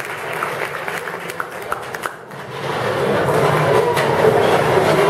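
Scattered applause tapering off, then after a brief lull about two seconds in, many people in a hall start talking at once, a general chatter that grows louder.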